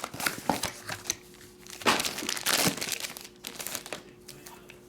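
Plastic wrapping on trading-card boxes and packs crinkling and tearing as they are opened by hand, in irregular rustles and clicks, loudest about two seconds in.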